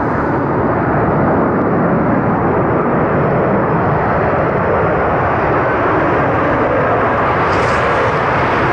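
Boeing 737 jet engines on landing approach: a steady, loud rumble.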